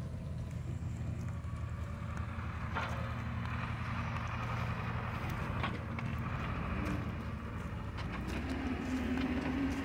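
A vehicle engine running steadily, a low, even rumble, with a couple of sharp knocks about three and six seconds in.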